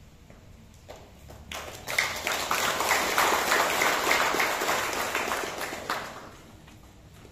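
Crowd applauding: many people clapping together, starting about a second and a half in, holding for about four seconds and then dying away.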